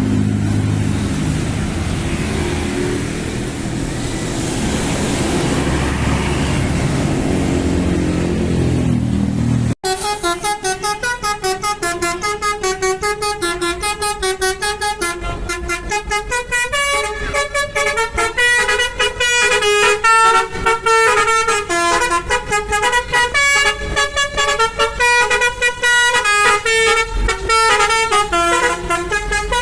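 Indonesian bus 'telolet' musical horn of the basuri type, playing tunes of stepped notes. Before a sudden cut about ten seconds in, the notes are low and mixed with a haze of noise. After it comes a fast run of short, higher notes.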